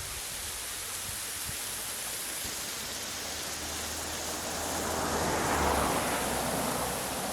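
Steady rushing of a waterfall. A louder swell with a low hum rises and fades away between about four and a half and seven seconds in.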